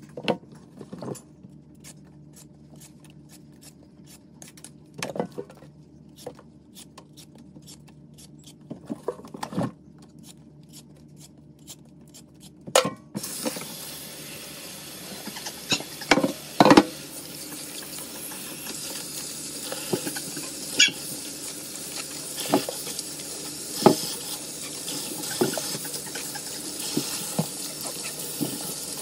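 Kitchen tap turned on about halfway through, running water over cucumbers in a stainless steel sink, with knocks and splashes as the cucumbers are handled and rinsed. Before the tap comes on there are only occasional soft knocks.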